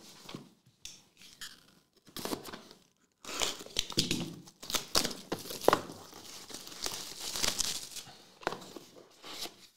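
Plastic shrink wrap being torn and peeled off a trading-card box, crinkling and crackling. A few scattered crackles at first, then dense crinkling from about three seconds in until near the end.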